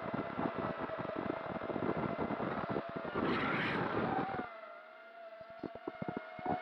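5-inch FPV quadcopter's motors and propellers whining steadily, with wind buffeting on the onboard microphone. About four and a half seconds in the rumble drops away and the whine sags as the motors ease off, then the full sound comes back near the end.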